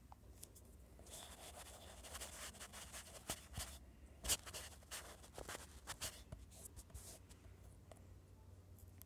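Fingertip rubbing and tapping on a phone touchscreen while painting strokes, a soft scratchy brushing with many small ticks and one sharper tap about four seconds in, over a faint low hum.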